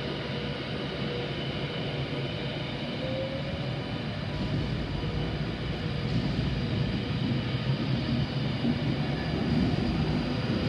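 Class 390 Pendolino electric train running along the line, a steady rumble of wheels on rails with a faint motor hum, growing louder.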